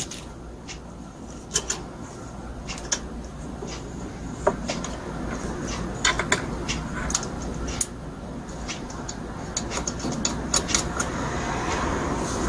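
Small clicks and taps of metal and plastic parts being handled as a carburetor is fitted back onto a small brush-cutter engine, over a steady low hum.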